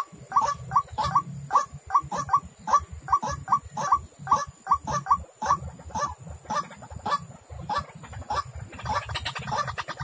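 White-breasted waterhen calling: a steady run of short, repeated honking notes, about three a second, growing busier near the end.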